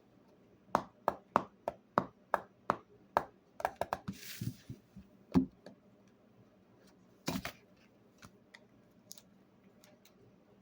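Slime being played with: a run of sharp popping clicks, about three a second, starting about a second in. Then a quicker flurry and a brief hiss, and single louder pops about halfway through and again later.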